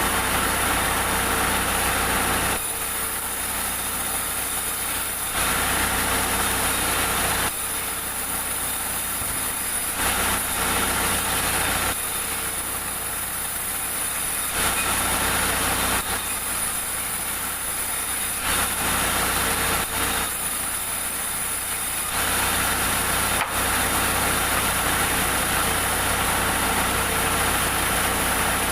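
Sawmill engine running steadily. About every four to five seconds its sound drops back for two or three seconds, then returns.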